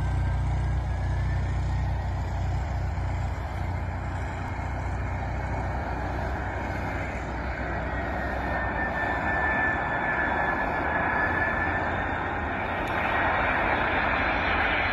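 Airbus A340-312's four CFM56 turbofan engines on final approach: a steady jet rush with a thin, slightly gliding whine, growing brighter and a little louder as the jet nears touchdown. A low rumble is there in the first few seconds and then fades.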